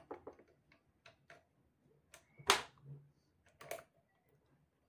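Parts of a homemade AR-style .22 pistol's upper receiver clicking and knocking as they are handled and taken apart: a few small clicks at first, a louder click about two and a half seconds in and another a second later.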